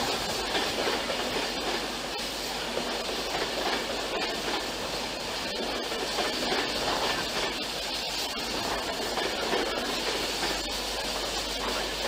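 Class 390 Pendolino electric train running past on the station tracks: a steady rushing rumble with faint clicking over the rail joints.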